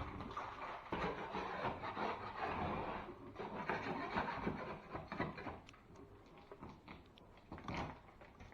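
A hand tool scraping and rubbing on a drywall surface, with scattered small knocks; the scraping is busiest for the first five seconds or so, then goes quieter and sparser.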